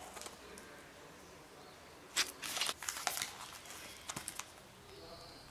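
Pages of a hardcover graphic novel being turned and the book handled: a few short paper rustles, about two seconds in, around three seconds, and once more a second later.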